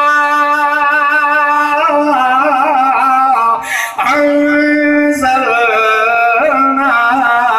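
A man's voice chanting a Quranic verse in melodic recitation, holding long high notes with ornamented turns and taking a short breath about halfway through.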